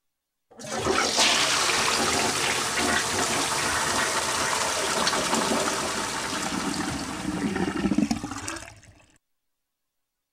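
Toilet flushing: a loud rush of water that starts about half a second in and runs for about eight seconds. Near the end it swells into a gurgle as the bowl drains, then dies away quickly.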